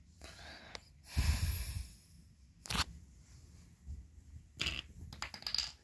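Handling noise: a plush toy and bedding fabric rustling as they are moved, with bumps from the phone being handled. A few scattered rustles, the loudest about a second in, a sharp click just before three seconds, and a cluster of rustles near the end.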